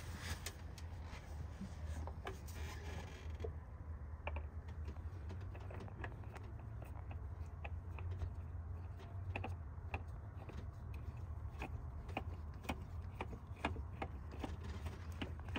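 Scattered light clicks and taps of hands working on metal and plastic parts deep in an engine bay while fitting a spin-on oil filter, several a second and irregular, over a steady low hum.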